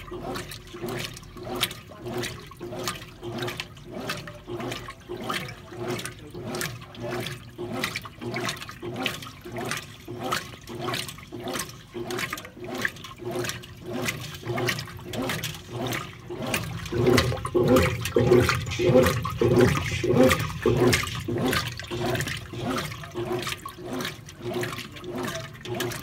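Brastemp Clean BWC11 top-loading washing machine agitating clothes in water during its wash stage: rhythmic sloshing in quick, even strokes as the agitator swings back and forth, with a steady hum underneath. The sloshing grows louder for a few seconds past the middle.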